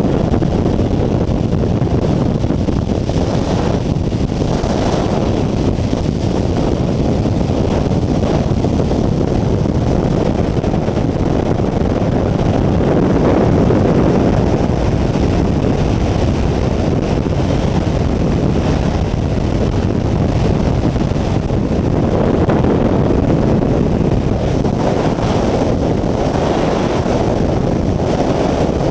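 Loud, steady rush of air buffeting the camera's microphone: the wind of a skydiver's fall.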